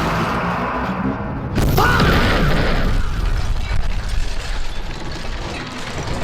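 Mechanical rattling and clanking sound effects, with a sudden heavy hit about one and a half seconds in and a brief gliding tone just after it.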